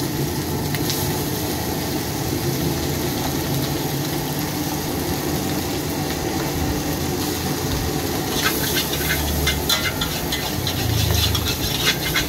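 Fried rice sizzling in a steel wok over a steady low rumble. From about eight seconds in, a metal spatula clanks and scrapes against the wok as the rice is stirred.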